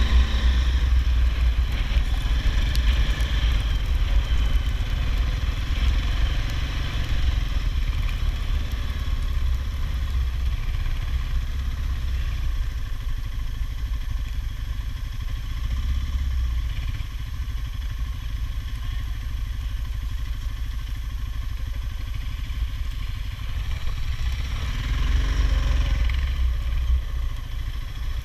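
ATV engine running as the machine is ridden, its note shifting with the throttle and getting louder again near the end.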